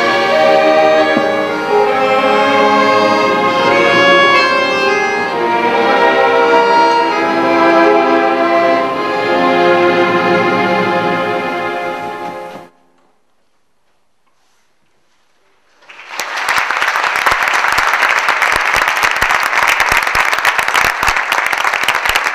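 Symphony orchestra with an accordion soloist playing the closing bars of a piece, strings and brass together, which cuts off abruptly about halfway through. After a few seconds of near silence, the audience's applause starts and continues.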